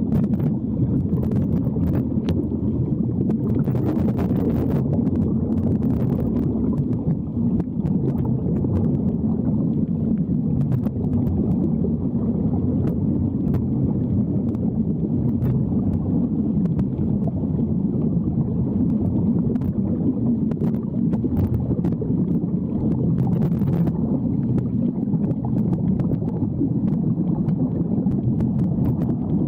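Underwater recording of a steady low rush of air bubbles streaming from Sea Trek diving helmets, with scattered faint clicks.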